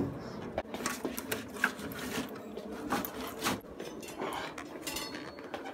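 Handling noise: a scatter of light clicks and knocks as things are picked up and moved, including a chrome-legged chair being handled.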